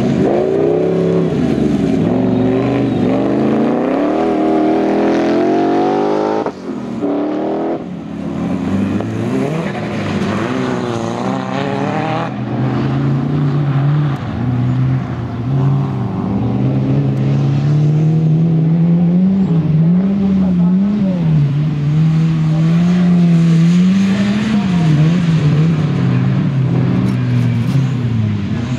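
Autocross race car engines revving hard, pitch rising and falling through gear changes and lifts as the cars slide around a dirt track. The sound cuts out sharply for a moment about six and a half seconds in, then runs on more steadily.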